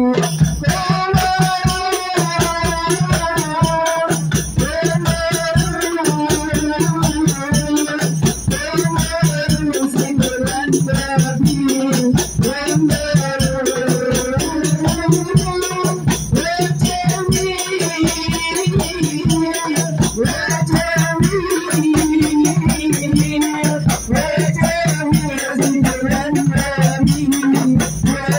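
A women's hadroh ensemble playing: rebana frame drums beaten in a dense, steady rhythm with a Maxtone bass drum and a small hand drum, while a woman sings the melody into an amplified microphone.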